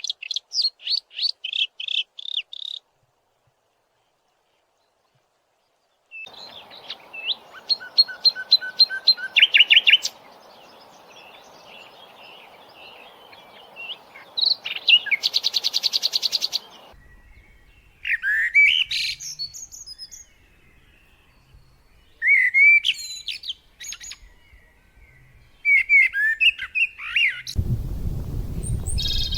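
Songbirds singing, with repeated high chirps and trills in several separate passages, broken by a few seconds of silence near the start. Near the end a steady rushing noise comes in under the calls.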